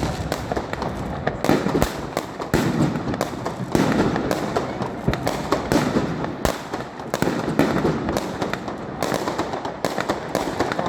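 Large firework cake firing a rapid, continuous barrage of bangs and shots, several a second.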